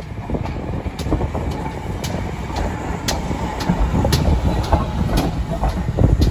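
GWR Large Prairie 2-6-2T steam tank engine and its coaches rolling past at low speed: a steady low rumble of wheels on track, with sharp clicks over the rail joints about once a second.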